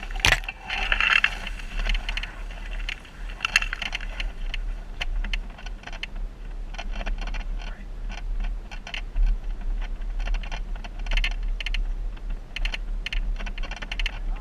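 Jeep driving over a rough off-road trail: many irregular clicks, knocks and rattles over a steady low rumble, with one loud knock right at the start.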